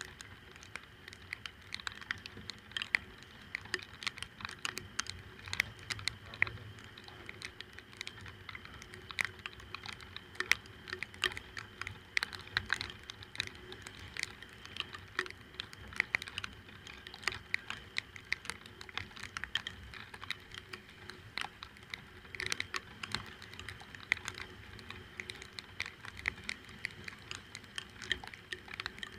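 Raindrops striking close to the microphone: a dense, irregular patter of sharp ticks over a faint steady hum.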